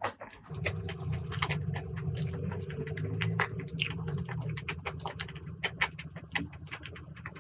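Close-miked eating of braised pork leg curry with rice: wet chewing and many sharp mouth clicks and smacks, over a steady low rumble that starts about half a second in.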